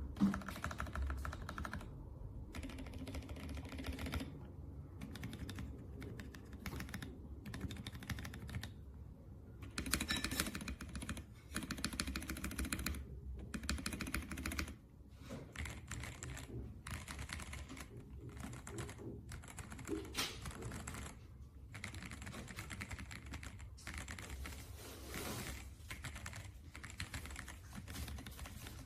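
Typing on a mechanical keyboard during a switch sound test: quick runs of key clacks in bursts of a second or more, with short pauses between them.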